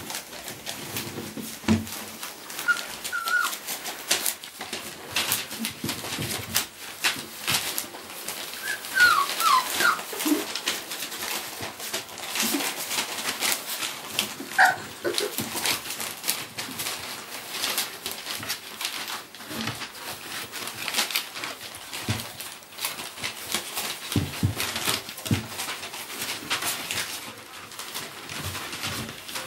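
A litter of 3½-week-old Dalmatian puppies at play: constant scrabbling and scratching of small paws on the whelping box and its bedding, with a few short high squeaks and whimpers.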